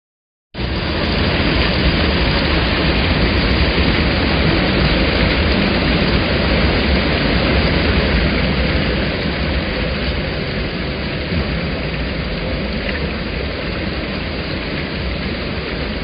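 Waterfall: falling water rushing in a dense, steady wash of noise that starts abruptly about half a second in and eases slightly after about ten seconds.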